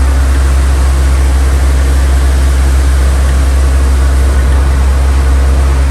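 A loud, steady engine drone with a deep low hum under an even hiss.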